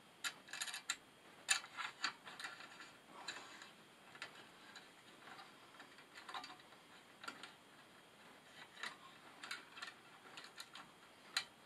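Irregular small clicks and scrapes of NM (Romex) cable being pushed through a clamp connector into a metal electrical box, the cable and hands rubbing and knocking against the metal.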